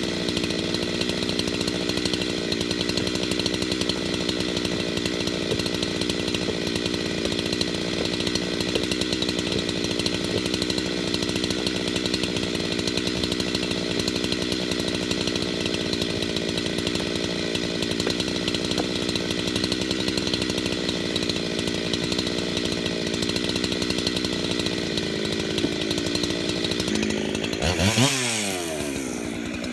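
Husqvarna 372XP two-stroke chainsaw with a 33-inch bar running steadily at high revs, held at a constant pitch as it bucks a big Douglas fir log. About two seconds before the end the revs drop sharply and then climb again.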